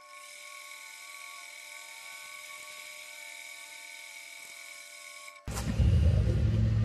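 Acraturn metal lathe running with a steady, many-toned whine while the tool takes a light cut off the corners of a chuck key's square end; the whine cuts off abruptly about five and a half seconds in. Louder clatter from handling the part on the chuck follows near the end.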